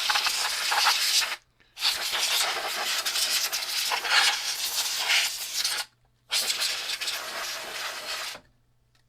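An aerosol can spraying into an opened, dusty Commodore 1541-II floppy drive to blow it out, in three hissing blasts. The first stops about a second in, the longest runs about four seconds, and a shorter one ends shortly before the end.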